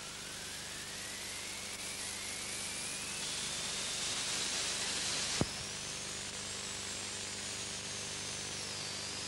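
Steam locomotive hissing steam, the hiss growing louder until a sharp click about five and a half seconds in, then going on steadier and softer.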